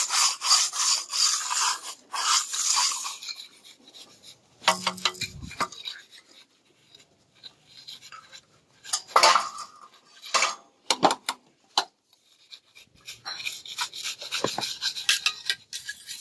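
Plastering float rubbing and scraping over fresh cement render on a wall, in a stretch at the start and again near the end, with scattered taps and knocks of tools in between.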